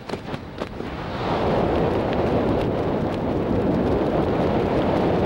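Wind rushing over a camera microphone during a tandem skydive as the parachute opens. A few sharp clicks come in the first second, then a loud, steady rush of wind starts about a second in.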